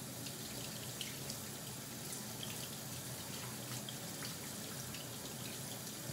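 Kitchen sink tap running steadily, the water rinsing canned black beans in a strainer, with a few light clicks.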